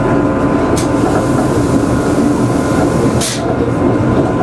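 Electric rack-railway train running, heard from the driver's cab: a steady drone of the drive and wheels with a steady whine over it, and two short hissing clicks, about one and three seconds in.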